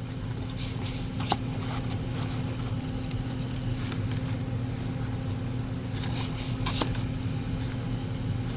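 Cardboard trading cards being handled and slid over one another: a few brief rustles and a sharp click, over a steady low electrical hum.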